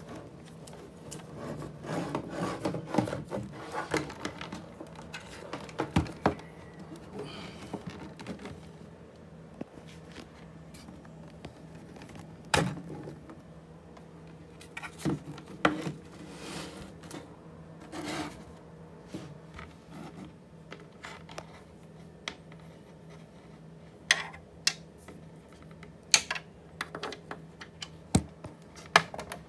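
Handling noise from power cords and cables being moved and rubbed, with scattered sharp plastic clicks and knocks from a power adapter and plug being handled. A faint steady low hum runs underneath.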